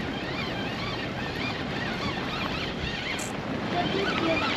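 Steady wind on the microphone over bay water along the shore, with faint high chirps throughout.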